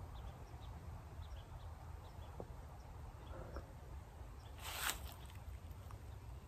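Quiet woodland ambience with faint, scattered short chirps and a single brief rustle or crackle a little under five seconds in.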